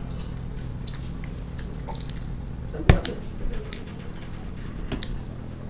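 Mouth sounds of people chewing noodles over a steady low hum, with one sharp knock about three seconds in as a stainless steel tumbler is set down on the table.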